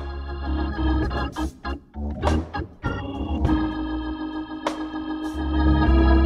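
Gospel band playing an instrumental passage: organ holding sustained chords over a bass line, with drum and cymbal hits. The music drops out briefly a little under two seconds in, then the organ chords return.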